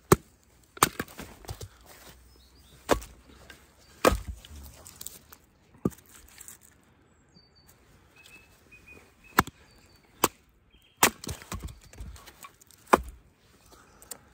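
Wooden baton striking the spine of a Fallkniven S1 knife, batoning the blade through a log: about a dozen sharp knocks at irregular intervals, with a pause of a few seconds in the middle.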